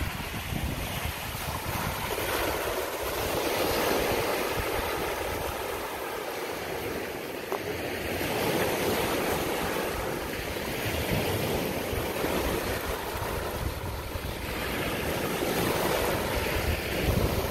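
Small waves breaking and washing up a beach, the surf swelling and fading every few seconds, with wind buffeting the microphone.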